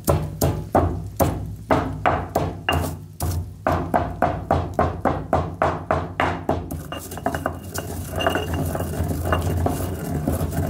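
Stone pestle pounding dried red chili flakes in a heavy stone mortar, about three sharp knocks a second. About two-thirds of the way through it changes to quicker, steadier grinding and scraping round the bowl.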